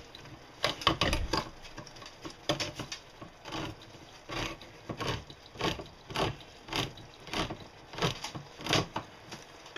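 A spoon scraping and stirring through tomato soup sauce in short, regular strokes, roughly one every half-second.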